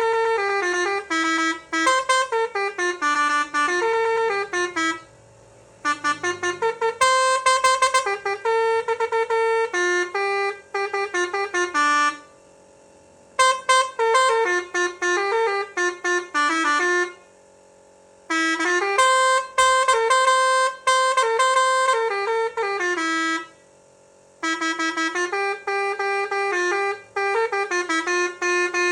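Basuri V2 musical trumpet horn playing a tune of quick, bright horn notes. The tune comes in phrases of about five seconds, with brief pauses between them.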